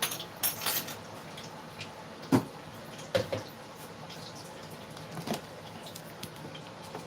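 Kitchen utensils and cookware knocking and clinking a few times: a cluster at the start, the loudest knock about two and a half seconds in, and more around three and five seconds in.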